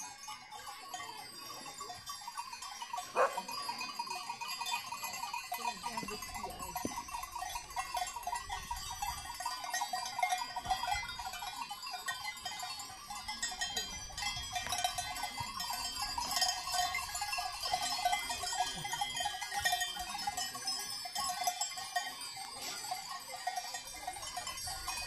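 Herd of Valais Blackneck goats milling about, many neck bells clanking together continuously, with occasional bleating.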